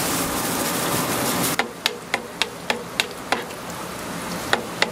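Steady hiss of food frying in hot oil for about a second and a half, then quick sharp knocks, about three a second, of a knife chopping on a cutting board, with a short pause near the end.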